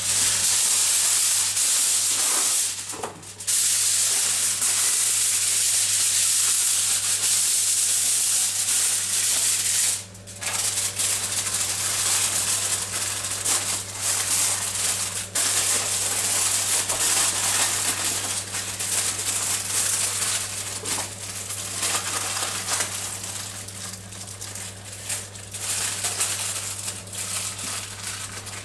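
Aluminium foil crinkling and crackling as it is torn off and wrapped around the outside of a baking tin, almost without a break, with short pauses about three seconds and ten seconds in. A steady low hum runs underneath.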